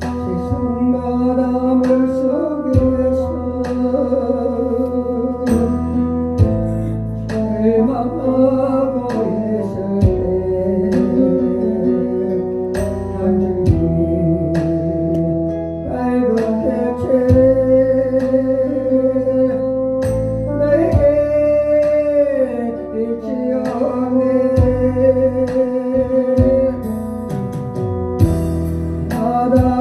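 A hymn sung to instrumental accompaniment: a sustained, sliding vocal melody over steady backing with guitar.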